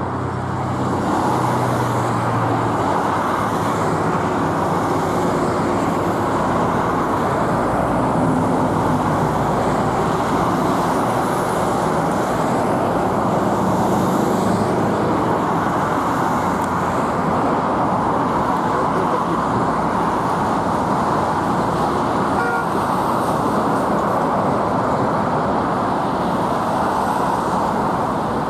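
Car on the move: steady road and engine noise, with a low engine hum clearest in the first few seconds.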